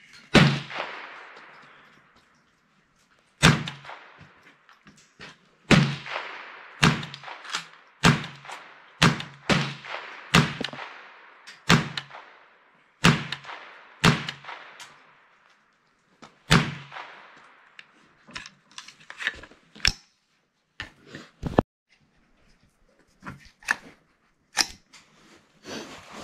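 Smith & Wesson M&P 15-22 .22 LR semi-automatic rifle firing about a dozen single shots at an uneven pace, one every second or two, each with a short echoing tail. Quieter sharp clicks and knocks follow in the last third.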